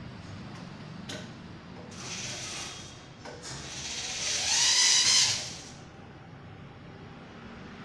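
Electric drill running in short bursts while driving screws into a wooden bed frame: a brief run about two seconds in, then a longer, louder run whose whine rises in pitch.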